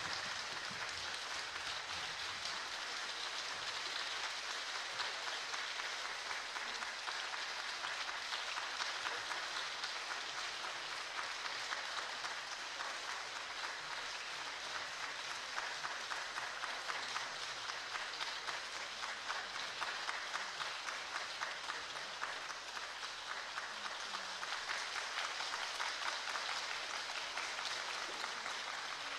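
Audience applauding, many hands clapping steadily and without a break.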